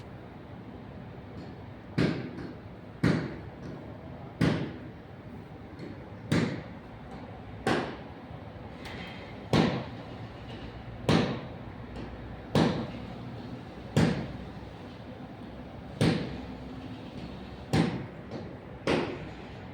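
Hammer knocking during clutch work on a diesel van: about a dozen sharp blows, roughly one every second and a half, each with a short ring, over a steady background hum.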